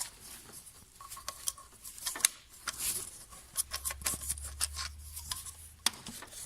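Hand wrench clicking and clinking on metal while loosening small nuts and hose clamps on a VAZ 2114 engine's valve cover: irregular sharp clicks, the sharpest about two seconds in and again near the end.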